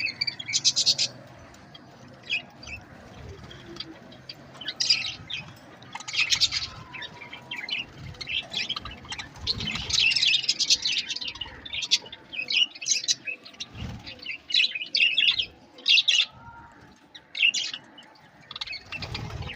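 Pet Australian parrots chirping, with many short, high calls coming in clusters every second or two, often several at once.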